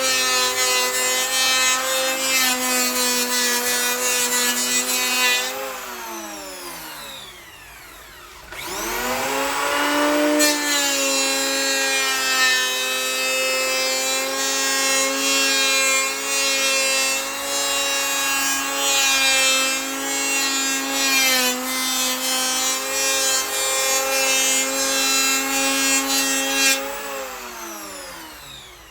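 Handheld electric power tool cutting wood in levelling passes over a wooden surface, its motor at a steady high pitch. It is switched off and winds down about six seconds in, starts again and spins back up around nine seconds, and winds down once more near the end.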